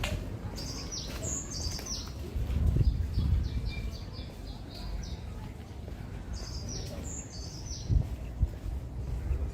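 A small songbird singing high chirps. A phrase of falling notes comes first, then a quick string of short notes, about four a second, and the opening phrase comes again about six seconds in. Under it runs a low background rumble, with a couple of knocks near the end.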